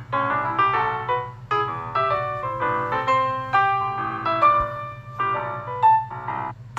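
Samsung Galaxy S21 ringtone: a melodic, piano-like keyboard tune of quick struck notes over a steady low drone. It breaks off shortly before the end.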